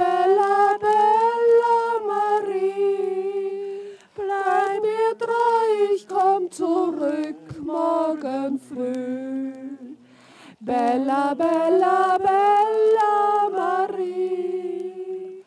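A solo voice singing long, slowly bending held phrases over a low steady drone, breaking off about 4 seconds in and again about 10 seconds in.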